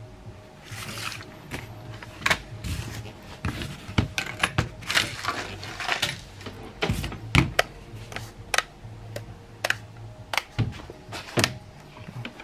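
Irregular sharp clicks and taps from handling a smartphone's plastic parts and a utility knife on a cardboard work surface, sometimes several a second.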